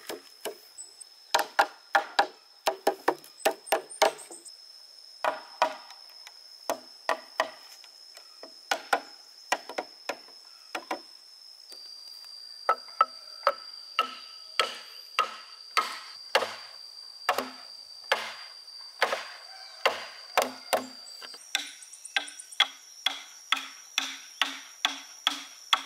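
Hammer knocking a wooden peg into a bamboo pole to join it, sharp hollow knocks in short runs that quicken to about two blows a second near the end.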